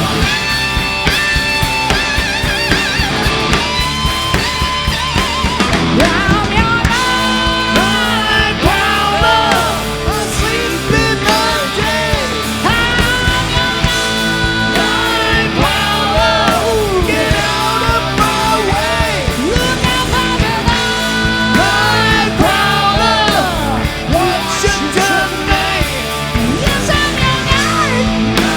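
Live rock band playing a slow blues-rock song: an electric lead guitar with many string bends over drums and bass.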